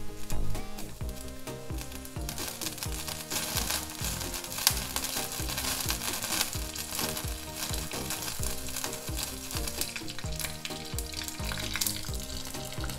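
Pork fat sizzling and crackling in a small steel ladle held over a gas burner, being heated until it catches fire; the crackling grows stronger about two seconds in. Background music with a steady beat plays underneath.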